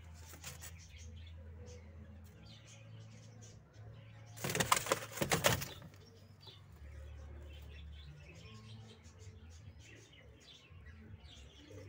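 Domestic pigeon flapping its wings: a brief flutter just at the start, then a louder burst of wingbeats lasting about a second, around the middle.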